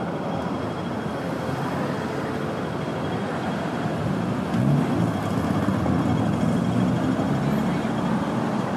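Busy city street traffic: engines of passing cars, taxis and buses and road noise, steady and dense, swelling a little from about halfway through as a heavier vehicle goes by.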